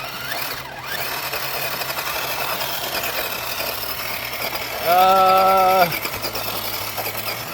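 Electric drive motor and gearbox of an Axial SCX10 II Deadbolt RC rock crawler whining steadily under throttle as it strains to climb a rock. A short held vocal sound, about a second long, comes about five seconds in.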